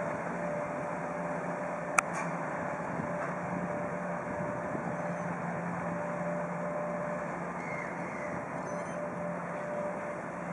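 Gosport passenger ferry's engines running with a steady hum as the ferry pulls away from its pontoon. A single sharp click about two seconds in.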